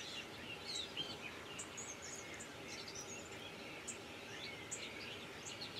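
Faint birdsong: scattered short chirps and twitters from small birds over a low steady background hiss.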